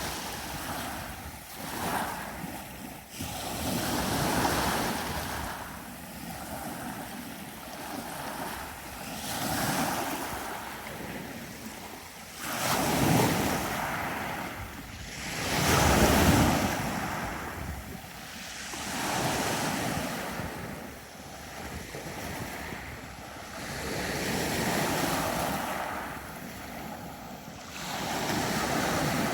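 Sea waves breaking and washing on a beach, surging and ebbing every few seconds. The two biggest surges come about halfway through.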